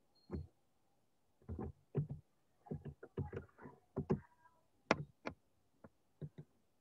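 A string of irregular soft knocks and clicks, a dozen or so spread unevenly over several seconds, like objects being handled near a microphone.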